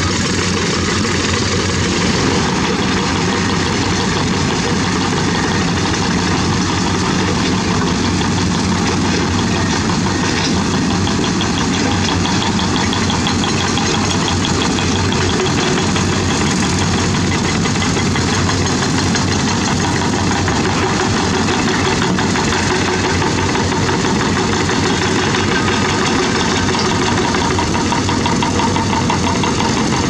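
Diesel engines of tracked hydraulic excavators running steadily in a continuous, even drone.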